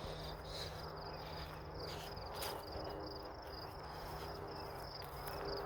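Insects in grass chirping steadily, a rapid even run of high chirps repeating without a break.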